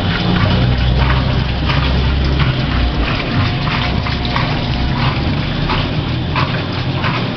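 Electrolux washing machine running, with a steady low hum and water swishing in the tub in repeated strokes about once or twice a second.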